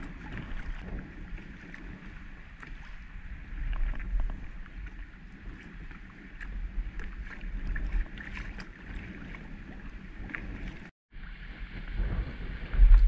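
Wind buffeting the microphone, with choppy water lapping against a kayak hull and scattered small clicks. The rumble swells in gusts, and the sound cuts out for a moment about eleven seconds in.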